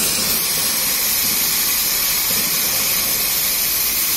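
Nitrogen leak-test pressure venting out of a Hyundai Santro Xing's AC system through the charging machine's valve: a steady, loud gas hiss as the pressure drops.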